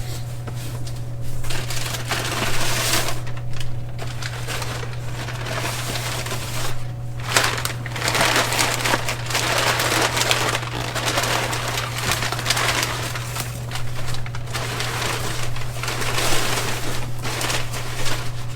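Packaging rustling and crinkling in uneven spells as parts are unwrapped and pulled from a kit box, over a steady low hum.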